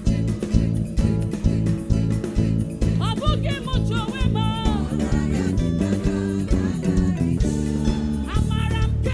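Live church band playing an upbeat praise song, with a steady bass-heavy groove and drums, and a bending melodic line, voice or lead instrument, coming in about three seconds in and again near the end.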